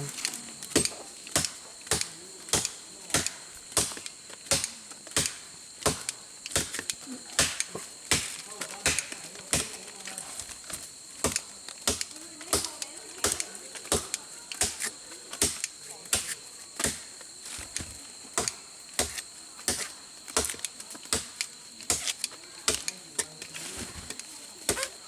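Rice harvest work by hand: sharp, crisp strikes repeating steadily at about two a second.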